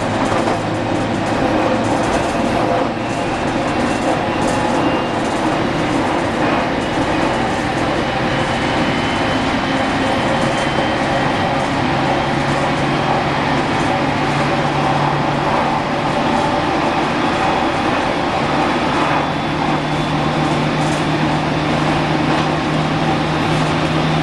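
JR Kyushu 815 series electric multiple unit running along the line, heard from inside: steady wheel-and-rail noise with the hum of its VVVF-controlled traction motors. The low hum shifts up in pitch about halfway through.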